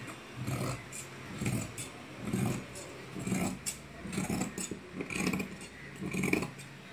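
Steel tailoring scissors cutting through cotton dress fabric, one crunching snip roughly every second.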